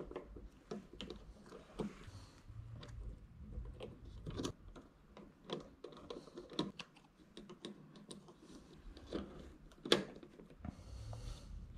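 Faint scattered clicks and light rustling of hands working at a thermostat wall base: wires being taken loose from the terminals and paper wire labels peeled off and stuck on. One sharper click about ten seconds in.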